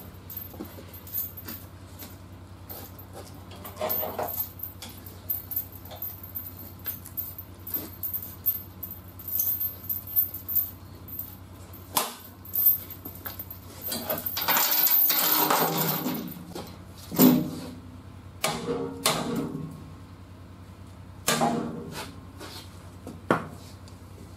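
Steel chain clinking and rattling on a hustler stick (pogo stick) frame-straightening lever and the frame rail as the bar is pushed down and then unhooked, with scattered metal knocks. A longer noisy stretch of about two seconds comes a little past halfway, followed by a sharp clank.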